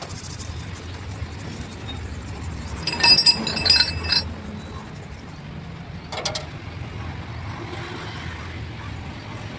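Steel truck differential parts clinking together as they are handled: a quick run of ringing metal-on-metal clinks about three seconds in and a single knock a few seconds later, over a steady low hum.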